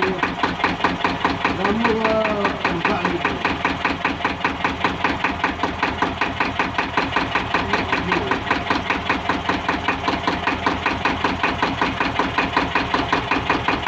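Yanmar two-cylinder diesel engine running steadily, with an even, rapid knock of about five beats a second.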